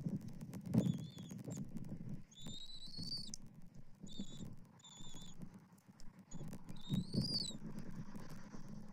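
Bald eagle chirping on the nest in high, thin whistles: about six calls, some short and clipped and two longer ones that rise in pitch, while an adult feeds the eaglet. Low rustling and soft knocks of the nest and prey run underneath.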